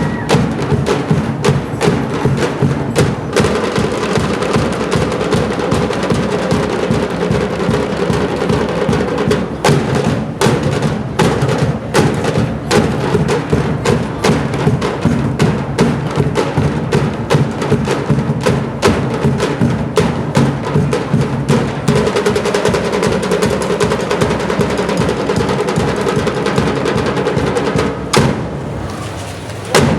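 Music driven by fast, dense percussion (drums and woody knocks) over steady held tones. It drops off briefly near the end and comes back with a sharp hit.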